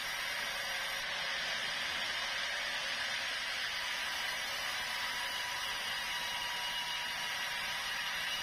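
Sawmill saw running steadily, a constant hiss-like noise with a faint high whine.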